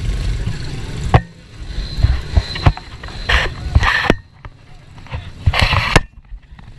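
Pit bike riding: a steady rush of wind and small-engine noise, broken by abrupt cuts into shorter bursts of louder engine noise.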